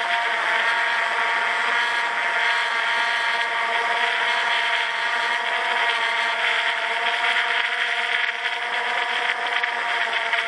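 Quadcopter drone's electric motors and propellers whirring steadily in flight, a loud buzz of several steady tones over a hiss, heard up close from a camera slung beneath the drone.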